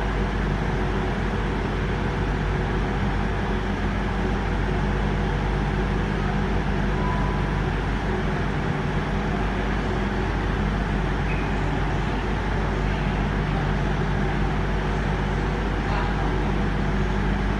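Diesel passenger train standing at the platform with its engines idling: a steady low hum that holds level throughout.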